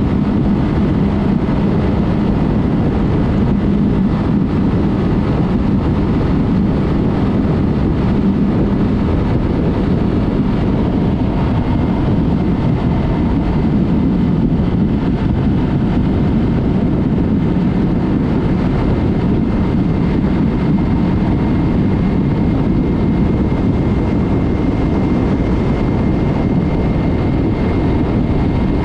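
Yamaha MT-03 parallel-twin engine with an aftermarket Mivv exhaust running at a steady cruising speed, its pitch holding steady, under a heavy rush of wind and road noise.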